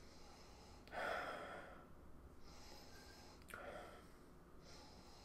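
Two long sniffs through the nose, a person smelling a glass of beer: one about a second in, the second about two and a half seconds later.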